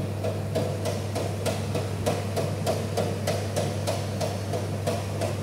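Regular hammer-like knocking, about three strikes a second, over a steady low hum.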